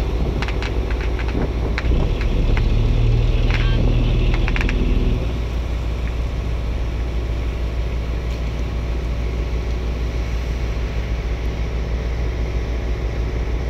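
Fishing boat's engine running with a steady low drone under wind and water noise. A louder, deeper steady tone joins from about two to five seconds in, alongside a scatter of sharp cracks.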